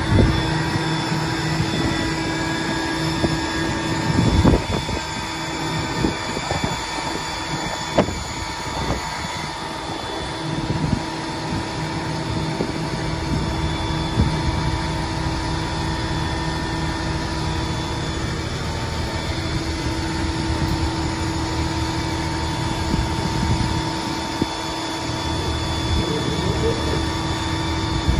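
Heavy diesel engine of a National Crane boom truck running steadily at idle while set up for a lift, with a few scattered knocks and clunks.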